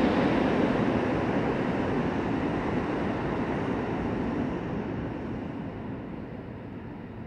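Rumble of a New York City subway train fading away steadily as it recedes through the tunnel.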